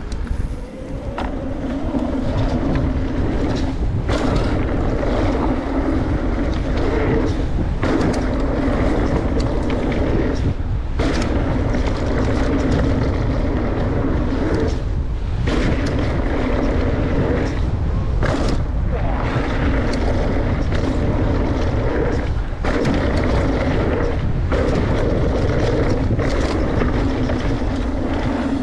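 Mountain bike ridden fast down a dirt freeride trail: rushing wind and tyre rolling noise with a steady buzzing drone, broken by short gaps every few seconds.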